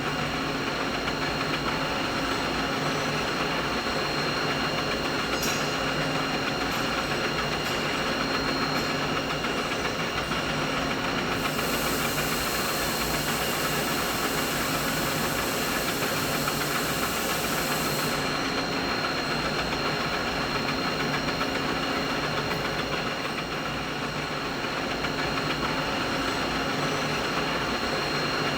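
Steady mid-frequency machine noise: a constant mechanical hum carrying several fixed whining tones over a dense hiss. An extra high hiss comes in about eleven seconds in and stops about seven seconds later.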